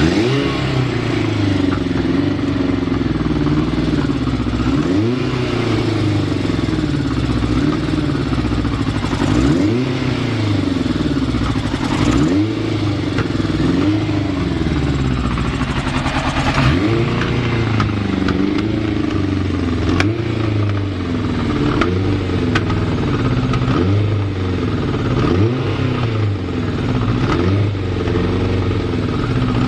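Yamaha FZR1000's inline-four engine running, with the throttle blipped every few seconds so the revs rise and drop back. The idle is unsteady because the carburettors have not been adjusted.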